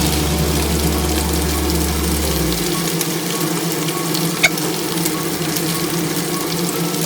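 Chicken karaage deep-frying in hot oil: a steady sizzle with fine crackles. A low hum underneath stops about two and a half seconds in, and there is a single sharp click midway.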